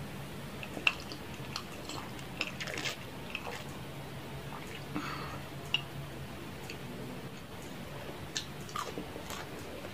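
Close-miked mouth sounds of a person drinking juice from a glass mug and eating: sips and swallows, chewing, and scattered small sharp clicks.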